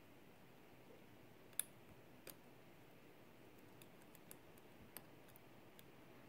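Faint, scattered clicks of a lock pick and tension wrench working the pins inside a Yale pin-tumbler lock, with one sharper click about a second and a half in.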